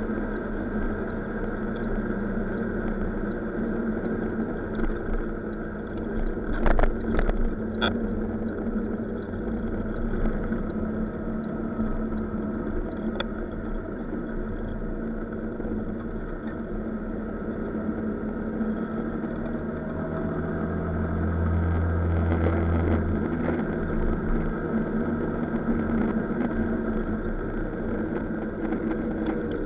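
Scooter engine running steadily under way, with wind and road noise, heard from a camera mounted on the scooter; a cluster of sharp knocks comes about seven seconds in, and the low engine note swells for a couple of seconds past the twenty-second mark.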